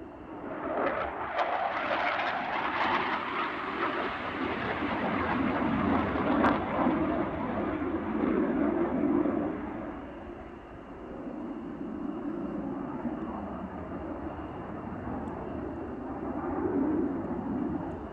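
Jet noise from a Saab J35 Draken fighter's turbojet as it flies by. The rough, rushing noise swells in sharply within the first second and stays loud for about ten seconds. It then eases a little and swells again near the end.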